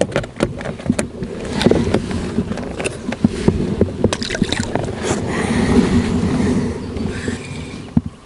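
Irregular clicks, knocks and rustling from someone shifting about and handling tackle in an inflatable PVC boat, with a short stretch of rushing noise in the middle.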